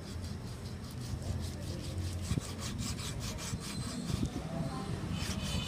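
Chef's knife slicing raw beef thinly on a wooden cutting board: a quick rhythmic run of strokes, several a second, the blade rasping through the meat and against the wood.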